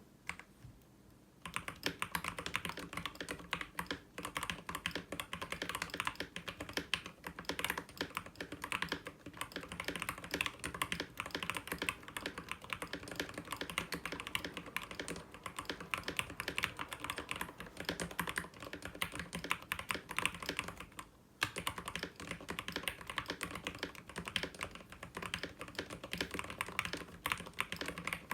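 Fast continuous typing on a lubed SteelSeries Apex Pro mechanical keyboard with OmniPoint magnetic switches, a dense clatter of key presses. It starts about a second and a half in and breaks off briefly about three quarters of the way through.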